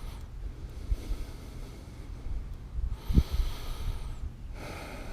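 A person breathing close to the microphone, with two noisy exhales about three and four and a half seconds in, over a low rumble with soft thumps.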